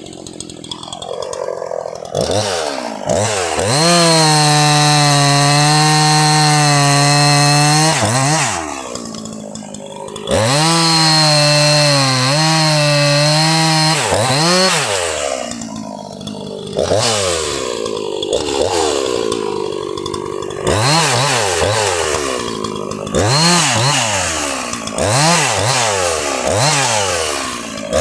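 Jonsered 2153 two-stroke chainsaw engine idling, then revved to full throttle and held there for about four seconds, twice. After that it is blipped up and back down to idle again and again, about once every one to two seconds.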